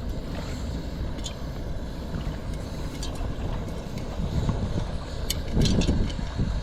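Wind rumbling on the microphone, with a few sharp pops of popcorn kernels bursting on a dry hot surface without oil. The pops come singly, then in a quick cluster near the end.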